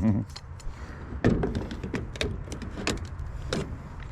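Irregular light knocks and clicks of tools and metal trim being handled on the job, with a few louder knocks among them.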